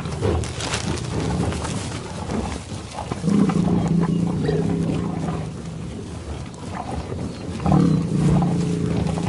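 Bovine lowing: two long, low moos, the first starting about three seconds in and the second near the end, over a steady background noise.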